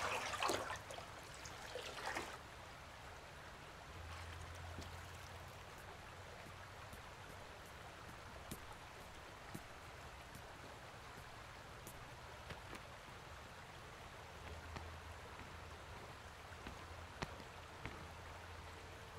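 Faint steady hiss of ambient background noise, louder for the first two seconds, with a low hum underneath and scattered small clicks.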